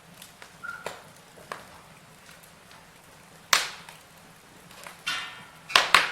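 Burning logs crackling in a fireplace: scattered sharp pops and snaps over a faint hiss, with a loud pop about halfway through and a quick cluster of loud pops near the end.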